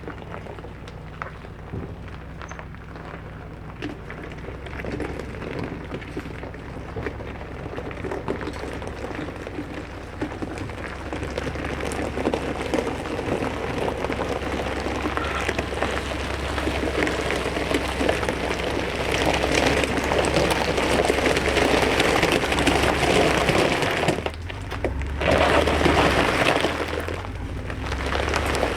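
Crushed stone sliding and pouring out of a tilting dump trailer: a gritty, rattling rush that builds over about twenty seconds. A low steady hum runs underneath.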